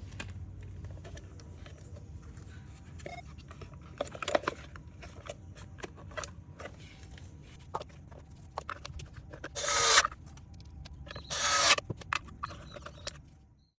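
Small clicks and knocks of parts being handled over a low steady hum, broken twice by a loud hiss of spray lasting under a second each, about ten seconds in and again a second and a half later.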